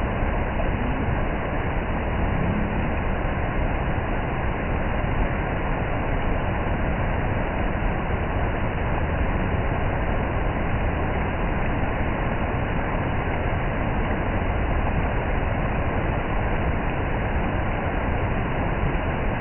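Waterfall: water pouring and rushing with a steady, unbroken noise that stays at one level.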